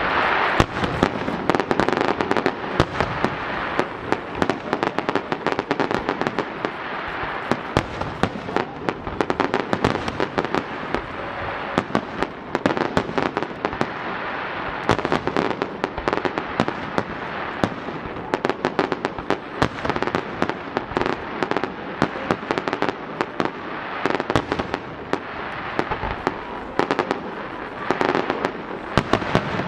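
Fireworks display: aerial shells bursting in quick succession, a dense run of sharp bangs that keeps going without a break.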